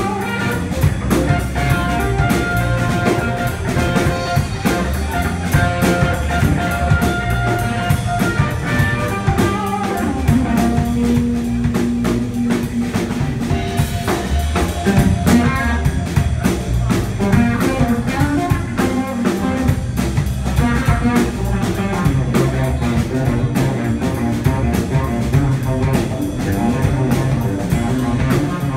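Live blues band playing: a guitar lead with long held notes over a drum kit and a steady low end.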